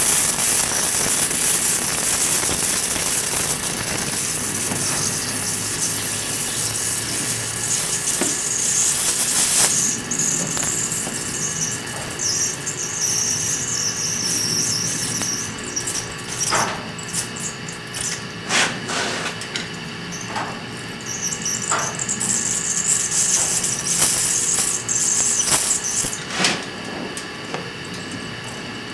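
TIG welding arc hissing and buzzing with a high squeal while tack-welding a bushing in thin sheet. About halfway through it turns uneven and stop-start, with several sharp clicks.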